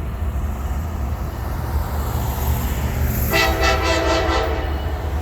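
Freight train passing with a steady low rumble. About three seconds in, the lead Norfolk Southern SD60E's air horn sounds one steady blast of about a second and a half, a horn salute.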